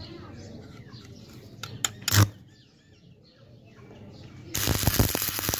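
Stick (arc) welding a drive sprocket onto its axle: a few short crackling arc strikes about two seconds in, then a loud, steady crackling hiss of the arc from about four and a half seconds in.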